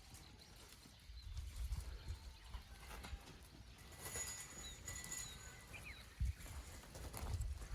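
Goats shuffling and bumping close around the microphone, their hooves clopping irregularly on the ground. A few faint, short chirps come about halfway through.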